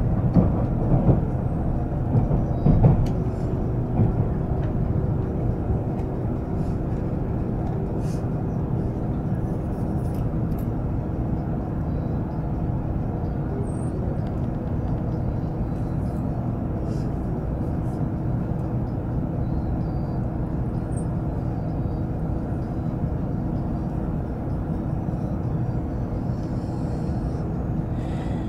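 Cabin noise inside an N700-series Shinkansen passenger car pulling into a station: a steady low rumble with a faint steady hum. There are a few knocks in the first three seconds.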